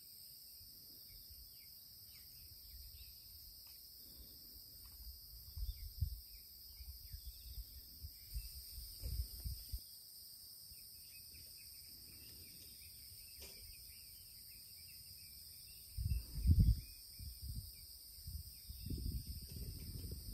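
Steady high-pitched chorus of insects in a summer meadow, with low rumbling gusts of wind on the microphone a few times, the strongest about two-thirds of the way in.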